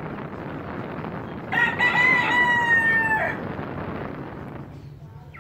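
A Brahma cockerel crowing once, about a second and a half in: a short first note and then one long held note that falls slightly at the end, lasting about two seconds.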